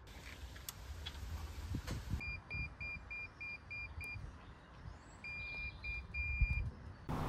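A quick run of short, high beeps at a steady pitch, about four a second, followed by a few longer beeps, over a low rumble.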